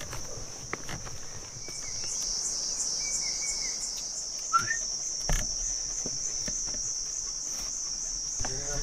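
Steady high-pitched buzz of insects in the forest, with light footsteps on a dirt trail and a short rising chirp about halfway through.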